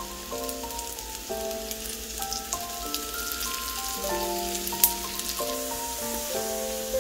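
Waffle batter sizzling on the hot plates of an electric waffle maker, a steady haze of fine crackles, with a sharp click just before five seconds in. Background music with a simple melody plays under it.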